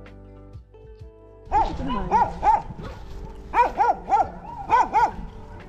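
A dog barking repeatedly in quick groups of two or three, starting about a second and a half in, after soft background music.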